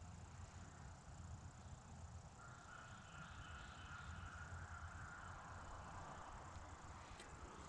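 Near silence: faint outdoor ambience with a low rumble. A faint steady high tone comes in a couple of seconds in and fades a few seconds later.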